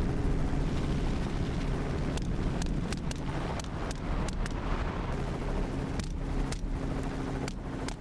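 Helicopter running with a steady engine and rotor drone. From about two seconds in, it is crossed by a string of short sharp cracks, rifle shots fired from the helicopter, roughly one or two a second.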